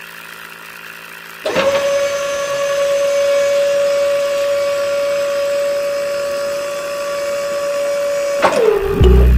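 A small DC hobby motor on a homemade toy drilling rig starts up suddenly with a steady high whine and runs at constant speed, then winds down, its pitch sinking, as it is switched off near the end. Before it starts, a fainter steady hum.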